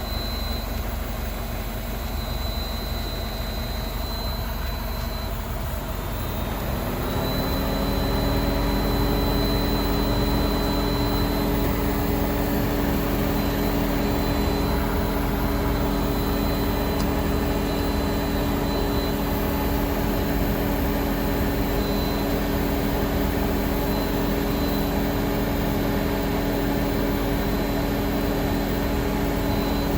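A whine from the fuel tank of a MINI Cooper R56 (non-S) sweeps up in pitch about seven seconds in, then holds a steady multi-tone whine over a constant low hum. It is a fault that appeared after a charcoal canister replacement, and the owner suspects an electrical cause.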